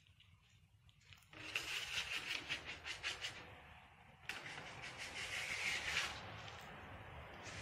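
Paint being rubbed and scraped across a large canvas by hand with an applicator. After a quiet first second come quick scratchy strokes, then a steadier rub in the second half.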